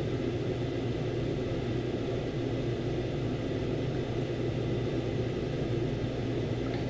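A steady low hum with a light hiss underneath, even throughout, like a running appliance or ventilation in the room.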